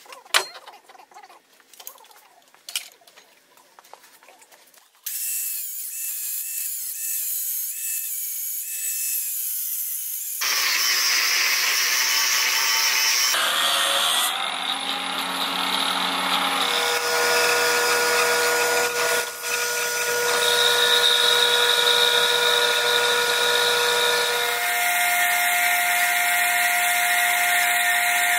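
A few light knocks and clicks. About five seconds in, power-tool noise starts and changes abruptly several times: an angle grinder with an abrasive cut-off wheel cutting through a steel rod, then a metal lathe turning steel with a steady tone.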